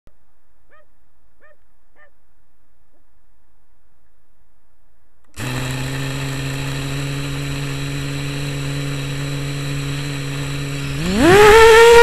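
FPV quadcopter's brushless motors heard through the onboard camera: they start suddenly about five seconds in and spin at a steady idle hum, then, about a second before the end, rise sharply in pitch and loudness as the throttle comes up for takeoff.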